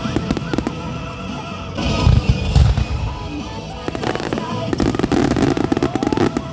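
Aerial fireworks going off close by: heavy booms of bursting shells about two seconds in, then dense crackling. Music plays along underneath.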